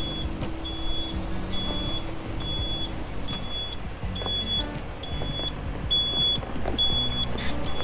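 Backup alarm of a heavy diesel vehicle reversing: a high beep repeating about once a second over the engine running.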